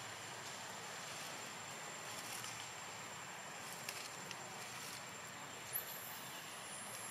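Faint outdoor forest ambience: a steady hiss with a thin, high, unbroken whine, a few soft clicks about four and six seconds in, and a brief high chirp just after the last click.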